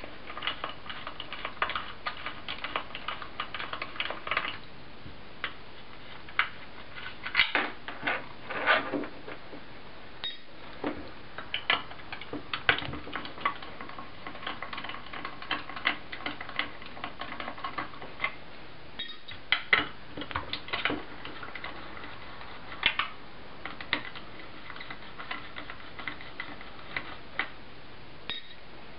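Clicks and small metallic clinks of a 3 mm hex driver undoing the pan head screws on a small two-stroke RC engine's carbon fan cover, with the screws and engine being handled. There is fast ticking for about the first four seconds, then scattered clicks with a few louder clusters.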